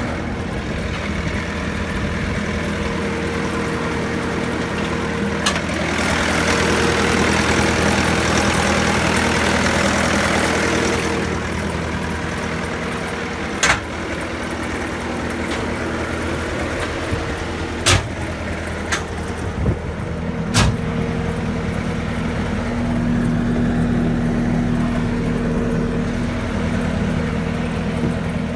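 2015 Bobcat S510 skid steer's 49 hp diesel engine running steadily. It gets louder with a hiss for about five seconds starting about six seconds in, and again near the end. A handful of sharp knocks fall in the middle.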